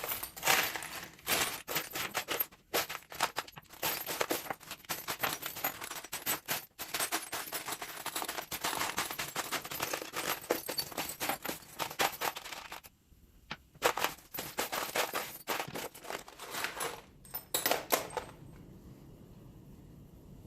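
A hand rummaging through a container of loose bolts and small metal hardware: dense, rapid metallic clattering and jingling. It pauses briefly about two-thirds of the way through, resumes, then stops a couple of seconds before the end.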